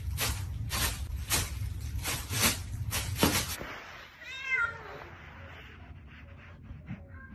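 A plastic bag crinkling in a series of irregular crackles under a sitting cat, then, after an abrupt cut, a cat meowing once with a falling pitch, followed by a few faint ticks.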